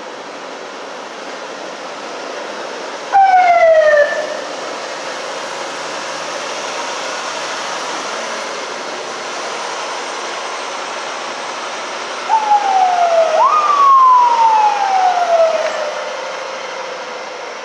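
A siren on a Union Pacific hi-rail truck wailing in falling sweeps: one short wail about three seconds in, then two more near the end, the second longer. Under it runs the steady noise of the truck moving on the rails with gondola cars.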